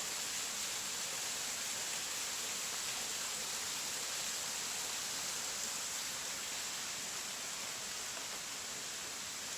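Small creek with a little waterfall: a steady rush of running and falling water.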